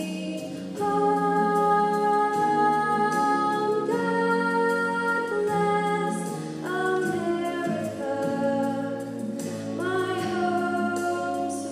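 A young woman singing a slow solo song into a handheld microphone, holding long notes, with piano accompaniment underneath.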